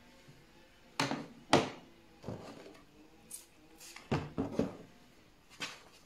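Close handling sounds on a wooden table: two sharp knocks a second or so in, the second the louder, as the plastic remote control is set down, then a run of lighter crackles and taps as a paper tissue is picked up and handled.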